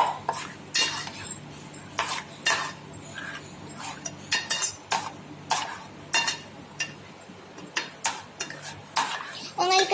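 A spoon stirring a mixture of crushed biscuits and milk in a bowl, knocking and scraping against the bowl in irregular clinks, a few each second.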